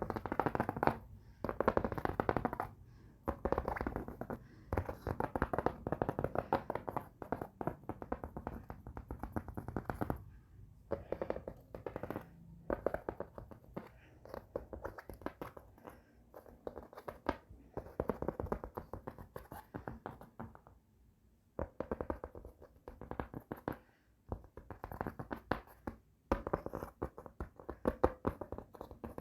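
Fast tapping on a cupboard with tapestry: rapid taps running in bursts of a few seconds, broken by short pauses.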